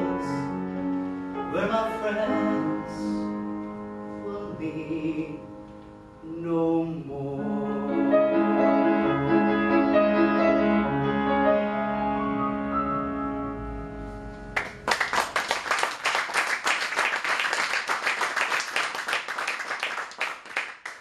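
Upright piano playing a slow piece with sustained notes, which ends; about two-thirds of the way in, audience applause breaks out suddenly and continues to the end.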